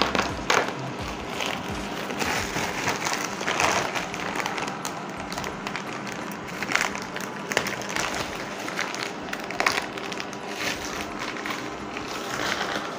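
Clear plastic wrapping on a vacuum-packed foam mattress crinkling and crackling as it is cut open with a small safety cutter and handled, with irregular sharp crackles over a steady rustle.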